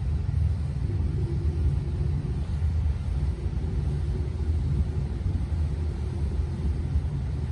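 A large motor yacht's engines running underway, heard from inside behind glass as a steady low rumble.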